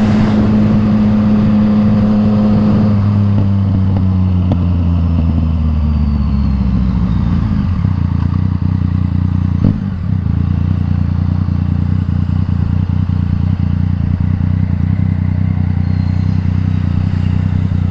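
Yamaha MT-09 inline three-cylinder engine through an Akrapovič exhaust, running at steady revs before the revs fall away over a few seconds and it settles to a steady low idle. A short blip comes about ten seconds in.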